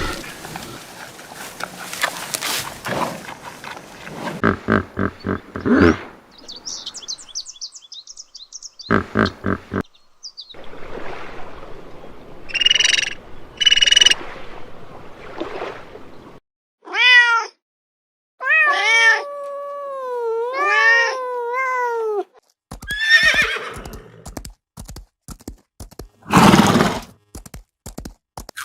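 A series of different animal calls, one short clip after another, with several drawn-out calls that rise and fall in pitch about two-thirds of the way through.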